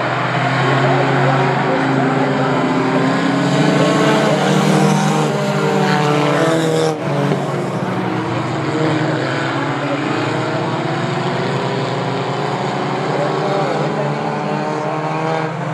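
A pack of compact stock race cars running at speed on a short oval, several engines at once, their pitch rising and falling as they accelerate out of the turns and pass. The sound breaks off briefly about seven seconds in.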